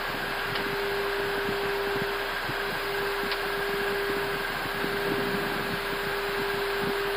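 Steady cockpit noise of an Airbus A320 on final approach with its landing gear down: an even rush of airflow with a steady hum and a fainter, higher steady tone.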